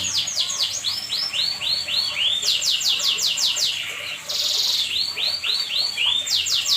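Canary singing a continuous song of repeated note runs: fast high downswept notes, then slower arched notes at about four a second, a short buzzy rattle about four seconds in, and another fast run near the end.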